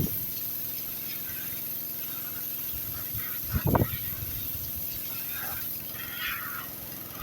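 Pressure washer running steadily, its horizontal-shaft Honda engine driving a three-stage Cat pump, with a hiss of spray. There is a short louder thump about three and a half seconds in.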